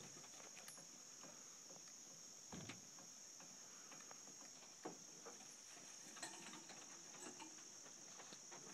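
Near silence with a faint, steady, high-pitched insect chorus, with a few faint ticks.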